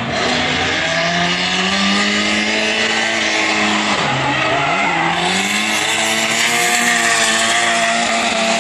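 Drift car's engine held at high revs while its rear tyres skid through a bend. The revs drop and climb back about four seconds in.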